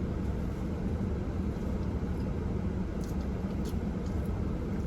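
Steady low rumble of a car's running engine heard inside the cabin, with a few faint clicks about three seconds in.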